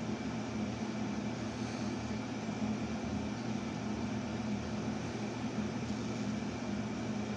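Steady low hum with an even hiss over it, unchanging throughout: indoor background noise from running equipment.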